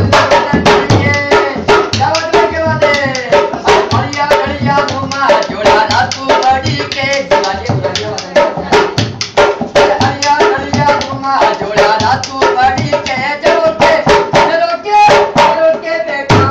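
Dholak, a two-headed barrel drum, played by hand in a quick steady rhythm, with a voice singing a gliding folk melody over it.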